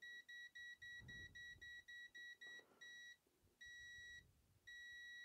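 Aneng M113 multimeter's buzzer beeping in non-contact voltage mode, faint and high-pitched. A quick run of short beeps, about four a second, signals a live mains conductor close to the sensor. Past the middle it slows to a few longer beeps.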